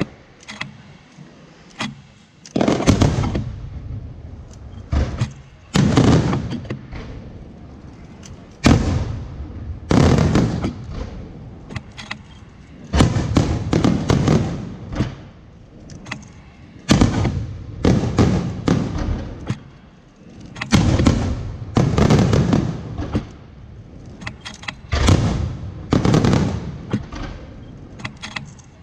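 Fireworks display with shells bursting one after another, each loud bang trailing off over about a second, in clusters every one to three seconds.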